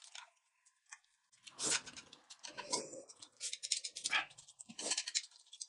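Noodles being slurped at the table: a handful of short, noisy slurps.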